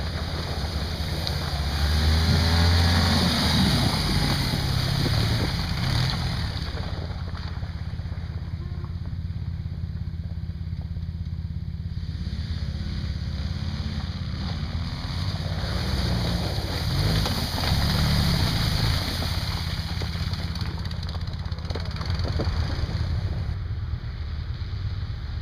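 Off-road buggy engines revving up and down as the buggies drive through snow, over a steady low rumble. The revving is loudest twice: a few seconds in, and again about halfway through.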